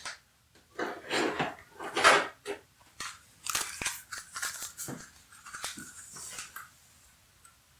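Handling noises: irregular crinkling rustles with sharp small clicks and knocks, spread over about six seconds and dying away near the end, as a Floppy Emu floppy-drive emulator is brought out by hand.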